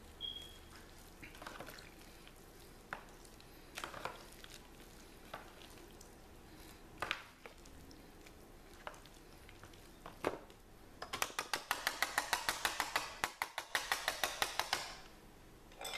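A metal spoon and wire whisk stirring wet instant mashed-potato flakes and milk in a disposable aluminium foil pan: scattered scrapes and taps against the foil, then about four seconds of rapid, even whisking strokes near the end, the loudest part.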